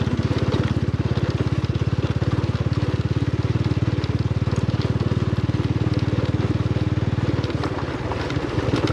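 TVS Apache RTR 180 motorcycle's single-cylinder four-stroke engine running steadily under throttle while riding a rough dirt track, with stones crackling under the tyres. Near the end the engine's pulsing eases as the throttle is backed off.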